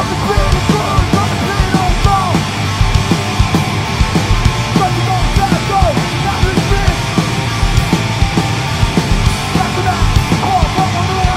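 A screamo band playing live and loud: electric guitars over drums, with hits coming at a steady, quick beat.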